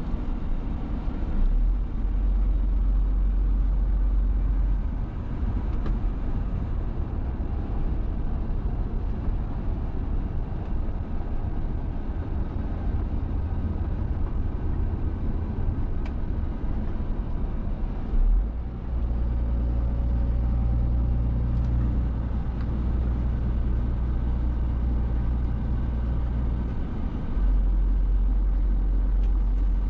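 Scania Super 500 S truck's 13-litre six-cylinder diesel running at cruising speed, heard from inside the cab together with road noise: a steady low drone whose rumble steps up and down a few times, with a short bump about 18 seconds in.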